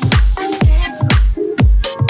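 Electronic house-style dance music with a steady kick drum about twice a second, each beat dropping deep in pitch, and short synth notes between the beats.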